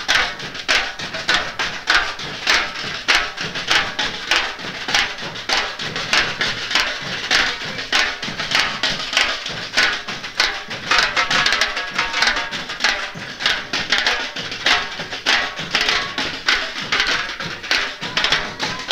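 Brazilian carnival street percussion bloco: surdo bass drums and snare drums played together in a steady, driving rhythm.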